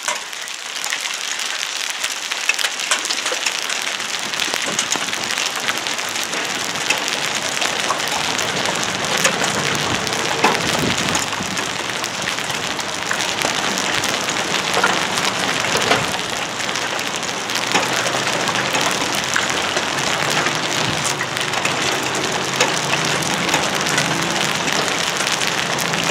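Rain falling steadily during a thunderstorm, many drops ticking on hard surfaces close by. It builds up in the first second or so. A faint low hum with a few steady tones comes in about two-thirds of the way through.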